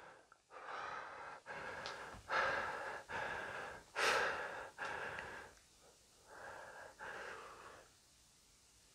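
A person breathing audibly, about eight quick breaths one after another, which stop about seven and a half seconds in.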